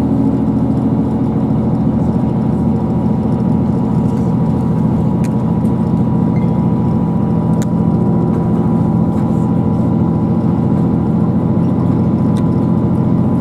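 Cabin sound of a Class 158 diesel multiple unit under way: the steady drone of its underfloor diesel engine with the running noise of the train beneath, its note shifting slightly about three seconds in.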